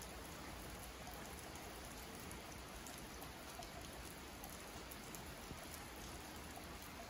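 Steady rain falling on a wet asphalt road and into a puddle: an even hiss with scattered ticks of single drops.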